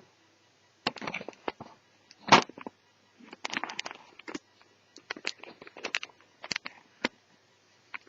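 Irregular clicks, taps and short scrapes of a laptop's small plastic and metal parts being handled by hand, with the loudest knock about two seconds in.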